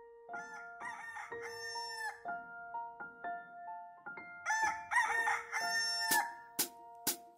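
A rooster crowing twice, each crow about two seconds long, over soft held music notes. Three sharp clicks follow near the end.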